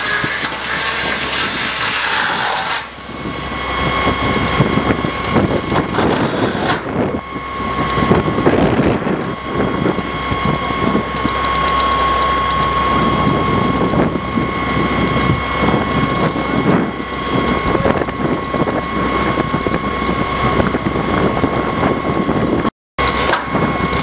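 Aerial platform fire truck running its engine and pump, with a steady high whine over a rough mechanical rumble. A dense hiss of spraying water fills the first three seconds and then stops.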